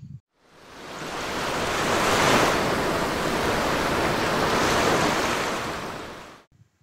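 A single rushing swell of noise like ocean surf, building up over the first two seconds, holding steady, then fading away about six seconds in.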